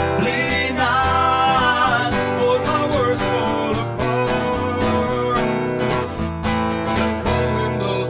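A man singing over a strummed acoustic guitar in a live acoustic blues-rock performance.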